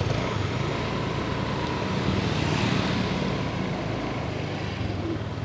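Road traffic: a bus engine running steadily as the bus pulls away down the road, with a motorbike passing close by.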